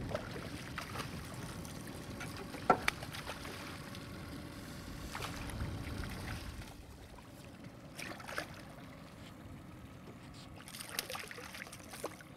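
Water splashing and slapping as a hooked striped bass thrashes at the surface beside a boat, with a few sharp clicks and knocks, the loudest a little under three seconds in.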